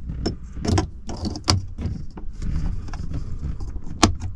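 Clicks and knocks of plastic as a gauge trim ring is handled and pressed onto a dashboard instrument pod, with one sharp click about four seconds in, over a low steady rumble.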